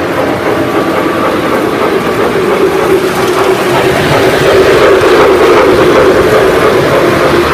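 Lionel O-scale Big Boy model locomotive and its freight cars rolling past on three-rail track: a steady rumble of wheels on the rails with a motor hum, getting louder about four seconds in as the train passes close by.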